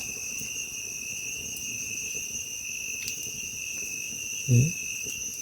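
Night insects, crickets by their sound, trilling steadily at two high pitches. A brief low vocal sound comes about four and a half seconds in.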